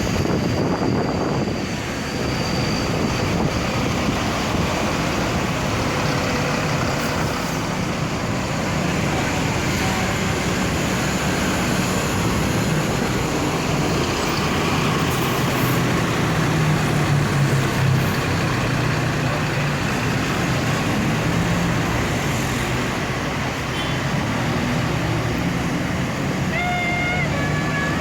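Tour bus diesel engine running with a steady low rumble, a little stronger midway through. A brief multi-note horn sounds near the end.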